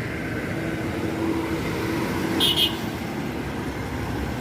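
A vehicle engine runs with a steady low rumble and hum. About halfway through there is one brief, sharp, high-pitched sound, the loudest moment.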